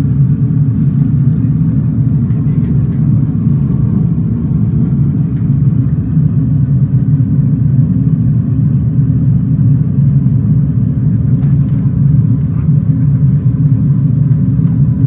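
Steady low rumble of the Airbus A320 flight simulator's cockpit sound: simulated engine and airflow noise of the jet in flight.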